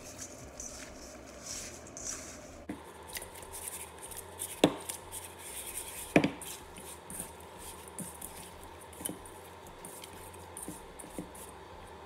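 Whole sea fish being mixed with salt by hand and tossed in a stainless steel bowl, as the fish are salted for fermenting into pla ra. Scattered small knocks and scrapes of fish against the bowl, with two louder clunks about four and a half and six seconds in.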